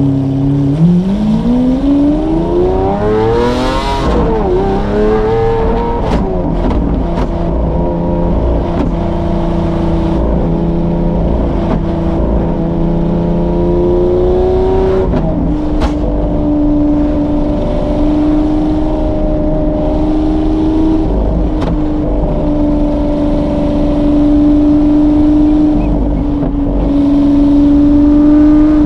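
Lamborghini Aventador SVJ's V12 engine with a Novitec exhaust, heard from inside the cabin: it revs up hard in the first four seconds, its pitch drops with a gear change, climbs again, then settles into a steady cruise. About halfway through, the pitch steps down once more with another upshift and then holds steady.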